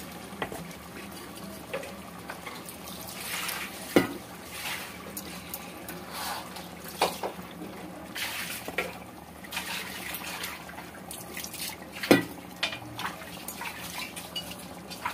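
Ground masala paste going into an aluminium pot of frying chicken: a wet, liquid sound with a few sharp clinks of metal against the pot, the loudest about 4 and 12 seconds in.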